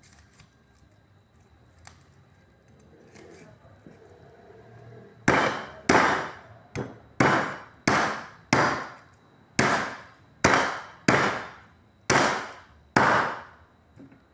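A large kitchen knife chopping through pieces of boiled chicken onto a round chopping board: about eleven sharp chops in an uneven rhythm, each trailing off briefly, after a few seconds of quieter handling.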